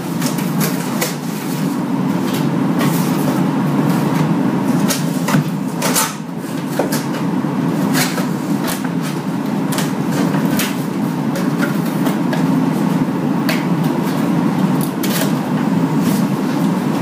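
Cardboard packaging being handled: a shipping box's flaps opened and an inner box pulled out and set down, with irregular knocks, scrapes and rustles of cardboard over a steady low hum.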